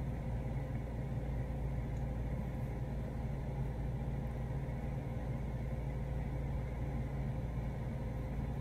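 Window-type air conditioner running, a steady low hum with fan noise that does not change.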